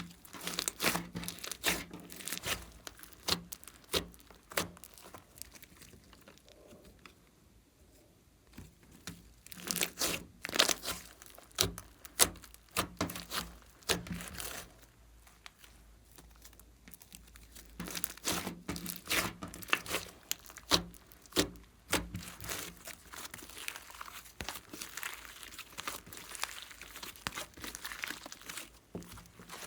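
Glossy slime being squished and mixed by hand, giving irregular sticky pops and crackles in clusters, with two quieter pauses of a few seconds.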